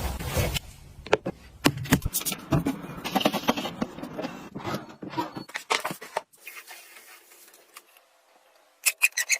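A run of irregular sharp clicks and clatters from a small mechanism or hard objects, dying away after about six seconds and leaving a faint steady hum, then a quick cluster of clicks near the end.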